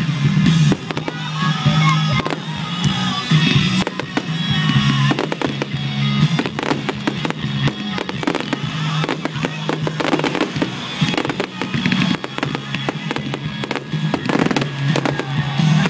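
Aerial fireworks bursting overhead in a rapid, continuous run of bangs and crackles, with music playing underneath.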